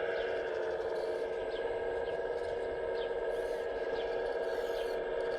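Steady whine of an RC excavator's electric hydraulic pump running, with faint short chirps about once a second above it.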